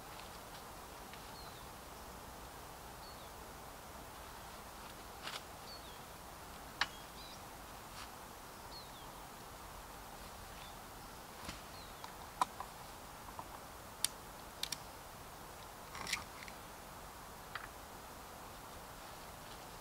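Distant irregular knocks and thuds of bags of leaves being handled and dropped off the back of a pickup truck, a dozen or so scattered sharp hits over a faint steady outdoor hiss.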